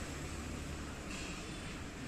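Steady background drone: a low rumble under an even hiss, with no distinct events.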